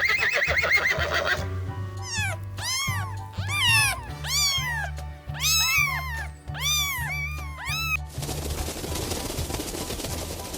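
An animal giving a quick series of short, high-pitched calls that each rise and fall in pitch, over background music; a brief wavering cry comes before them.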